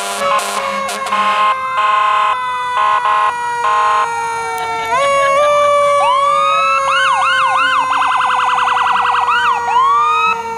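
Fire engine sirens: a siren tone slowly winding down throughout, a run of short horn blasts in the first few seconds, and an electronic siren wailing from about the middle, switching to a fast yelp for a second or so before wailing again.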